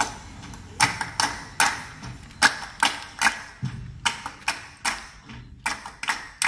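Rhythmic percussion from the stage: sharp, short strikes in a repeating pattern of three, about 0.4 s apart, each group followed by a short pause.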